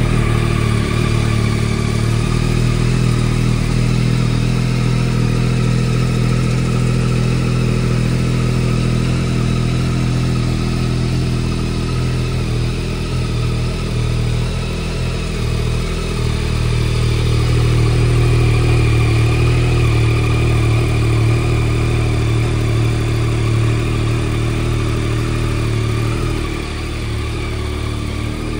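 Yamaha Tracer 9 GT's three-cylinder crossplane-crank engine idling steadily just after being started.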